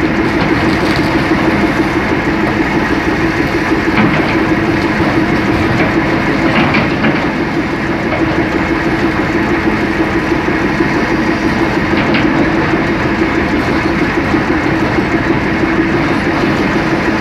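Caterpillar 375L excavator working under load: its diesel engine and hydraulics run with a steady hum while the bucket tears into a rock face. A few sharp knocks of rock against the bucket come about 4, 7 and 12 seconds in.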